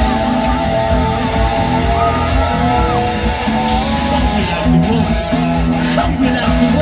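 Live rock band playing loud, amplified music through the venue's PA, heard from far back in the audience.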